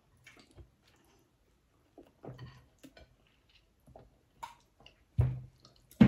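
Close-up eating sounds: soft chewing, lip smacks and small clicks of fingers picking at food, with sips of water from a glass. A louder thump about five seconds in.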